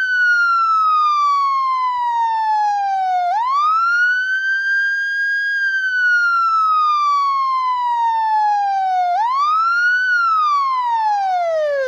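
Police siren sounding the wail: one tone with a slow fall in pitch, then a quick rise back up, repeating about every six seconds. The last fall near the end is quicker and drops lower.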